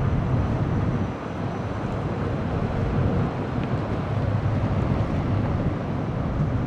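Steady low rumble of a harbour tugboat's diesel engines as it works alongside a newly launched tanker.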